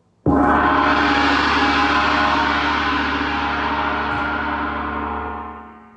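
Large orchestral gong struck hard once with a mallet about a quarter second in, ringing loudly with many tones and slowly fading, then damped so that the ringing dies away quickly near the end.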